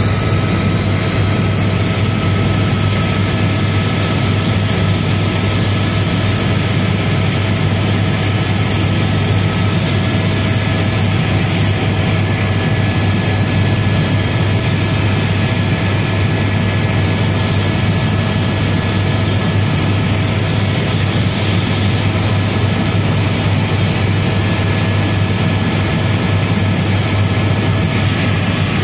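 Tour helicopter in steady flight, heard from inside the cabin: a loud, constant deep drone with a few thin steady whining tones above it.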